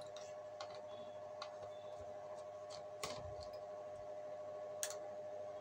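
Light scattered clicks and taps of a screwdriver and gloved hands handling a PLC's plastic casing and power-supply board, with two sharper clicks about three seconds in and near the end, over a steady faint hum.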